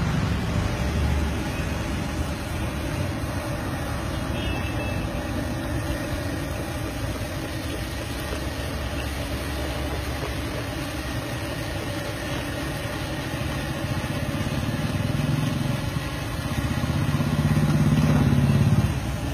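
Hot oil sizzling steadily in a large wok as potato slices fry, over a low engine-like rumble that swells for a couple of seconds near the end.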